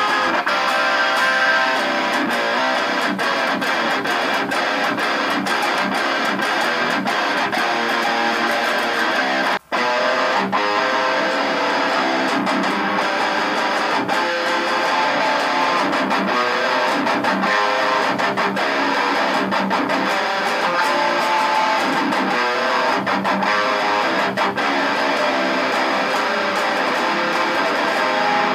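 Electric guitar played through a Mooer GS 001 preamp pedal into a Mooer Baby Bomb 30-watt power amp and a guitar cabinet: continuous picked riffs and chords. There is a brief dropout about ten seconds in.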